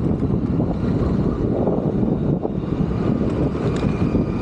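Steady road-traffic noise: a dense low rumble of passing vehicles, with a faint high tone near the end.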